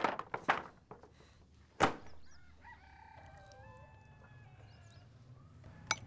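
Wooden table clattering over with a few knocks, then one loud thump about two seconds in. A rooster then crows faintly for about three seconds.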